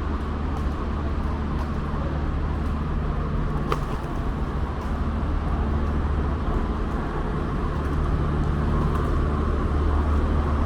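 Steady low rumble of city car traffic from a nearby avenue, growing a little louder toward the end, with one sharp click about four seconds in.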